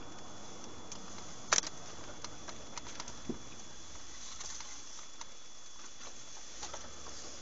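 Steady hiss of a moving car's cabin picked up by a dashcam microphone, with a faint high steady whine and scattered small clicks and taps, one sharper tap about a second and a half in.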